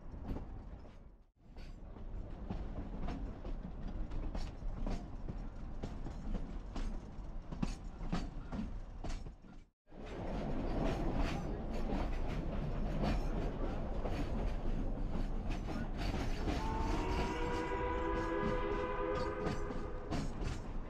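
Narrow-gauge steam train running, its wheels rumbling and clicking over the rail joints. About three-quarters of the way through, the locomotive's multi-note steam whistle starts blowing and keeps going to the end.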